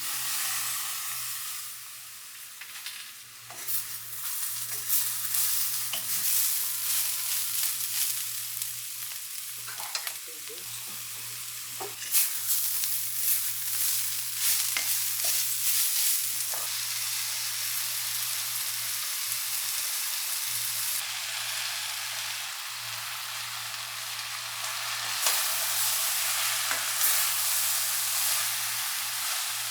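Food sizzling as it fries in hot oil, with scattered clinks and scrapes of a utensil in the pan, over a steady low hum.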